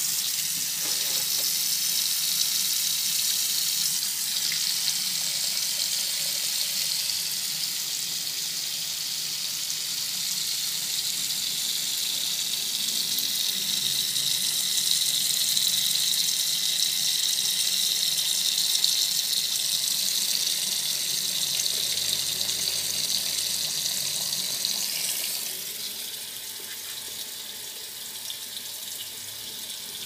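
Kitchen tap running a steady stream of water onto raw chicken pieces in a plastic basin in a sink, a continuous splashing hiss. It grows somewhat softer near the end.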